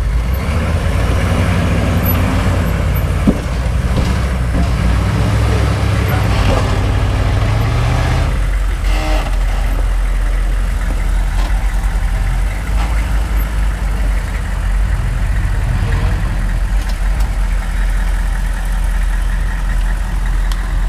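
Hummer H1's engine working under load as it crawls up a steep rock ledge. It holds higher revs for about the first eight seconds, then eases off to a lower, steadier note.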